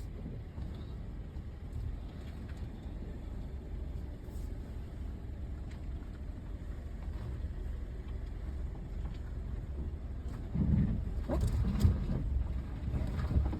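A vehicle's engine and road rumble at a slow crawl, a steady low drone that grows louder with a few swells about ten seconds in.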